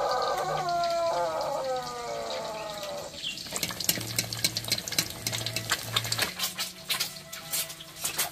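Background music trails off in a few descending notes over the first three seconds. Then an egg frying in hot oil in a wok sizzles with dense, irregular crackling and popping.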